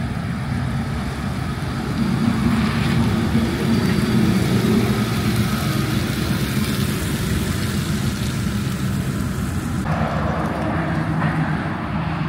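Ford Transit–based Winnebago Ekko camper van driving slowly past, its engine and tyres running steadily. It grows louder as it comes close, about two seconds in, then eases off as it pulls away.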